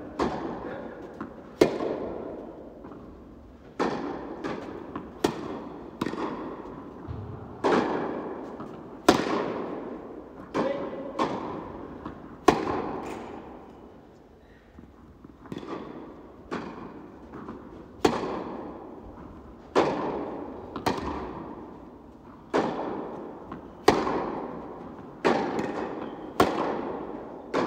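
Tennis rally: the ball is struck by rackets and bounces on the court, each sharp pop every second or two trailing off in a long hall echo. There is a short lull about halfway through before the hitting starts again.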